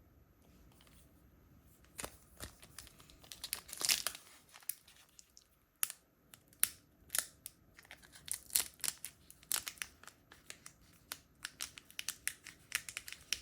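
Crinkling and tearing of a foil Pokémon booster pack wrapper as it is opened by hand, with the light clicks of cards being handled. The crackles start about two seconds in and come thicker toward the end.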